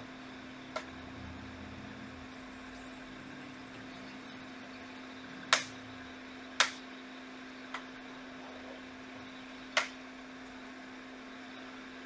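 Steady hum of electronics-bench equipment, a fan-like hiss with one constant low tone, broken by about five sharp clicks, the loudest two about five and a half and six and a half seconds in.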